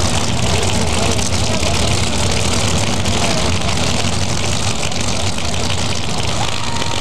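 Nitro-burning supercharged Funny Car engine idling at the starting line, loud and steady.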